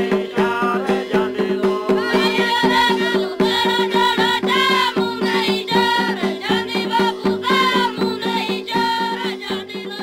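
Background music: a high melody that bends and slides in pitch over a steady drone, with quick drum strokes throughout.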